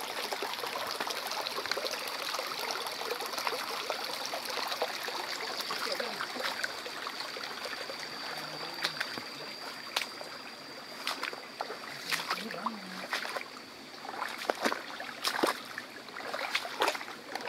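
Shallow stream trickling and gurgling over stones, with a thin steady high tone above it that fades out about three quarters through. A few sharp clicks and small splashes come in the second half.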